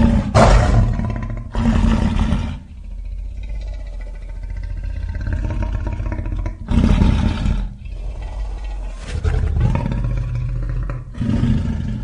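Tarbosaurus dinosaur sound effect: a string of deep roars in bursts of about a second each, the loudest near the start. Three come in quick succession, then after a quieter, steadier growling stretch three more follow.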